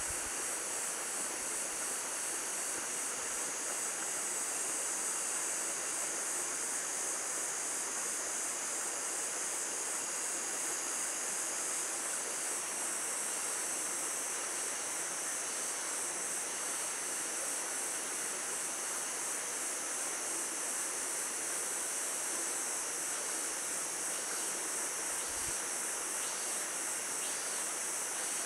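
Insect chorus: a steady, high-pitched shrill with a fast pulsing trill. About twelve seconds in, a second, lower insect song joins in short phrases repeated every second or so.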